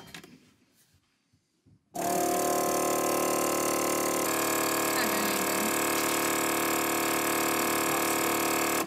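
Countertop vacuum sealer's pump motor starting about two seconds in and running with a steady hum for about seven seconds, its pitch shifting slightly partway through, then cutting off suddenly. The sealer is faulty: it seals the bag but leaves it full of air instead of drawing it tight.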